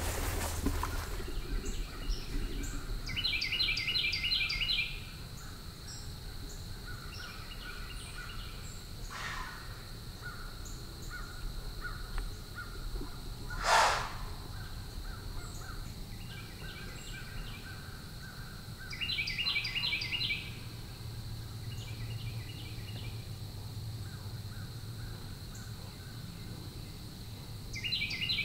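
A bird calling in bursts of quick, repeated high notes, several times over, against a steady thin high whine in the woods. One sharp snap about fourteen seconds in.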